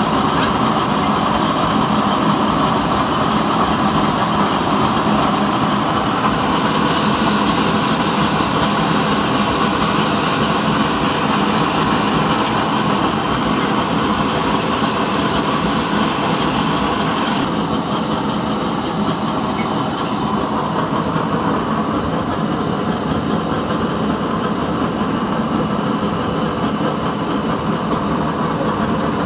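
Double-burner oil stove burning at full flame, a loud steady rushing hiss of the pressurised burner flames. Partway through, the upper hiss drops and the sound becomes slightly duller and quieter.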